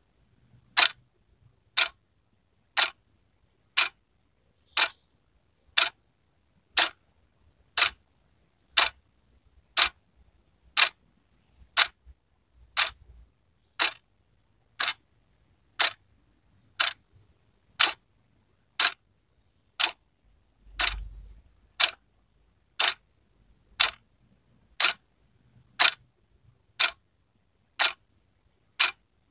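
Wall clock ticking steadily, one sharp tick a second.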